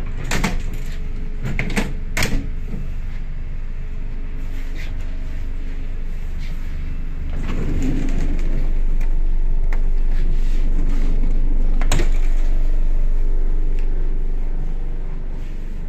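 ER2 electric train heard from inside the carriage: a steady low rumble, with a few sharp knocks in the first couple of seconds and another about twelve seconds in. The rumble grows louder about halfway through.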